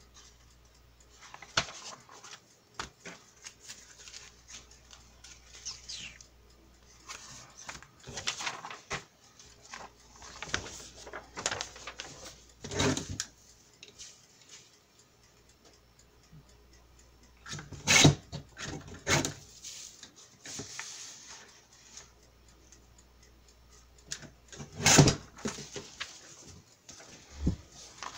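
Sheets of paper being handled and shuffled on a cutting mat: irregular soft rustles, broken by a few louder sharp slaps or knocks, the loudest about two-thirds of the way in and again near the end.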